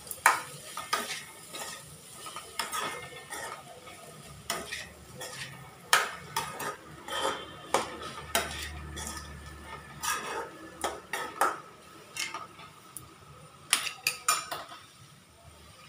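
A metal spoon scraping and clinking against an aluminium kadai in irregular strokes as boiled raw-banana (monthan kaya) pieces and grated coconut are stirred together. The stirring stops near the end.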